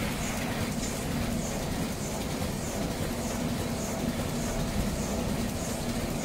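Automatic horizontal flow-wrap packing machine running steadily as it wraps disposable wooden cutlery: a continuous mechanical hum with a soft high tick repeating about every 0.6 s.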